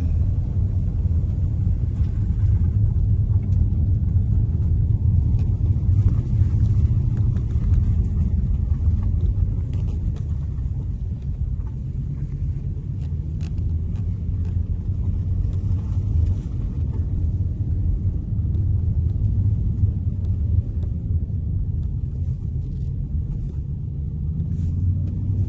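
A steady low rumble with a faint hum underneath, like an engine heard from inside a moving vehicle or boat.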